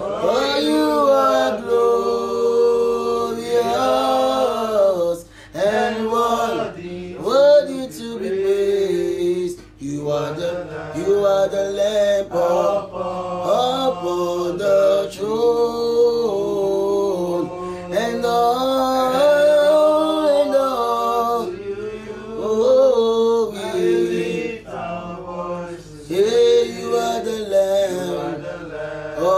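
A man singing a slow worship song with long held notes that slide and waver in pitch, pausing briefly for breath.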